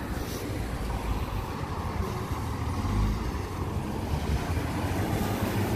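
Fire engine driving past close by, its engine rumbling and growing loudest about three seconds in as it goes by.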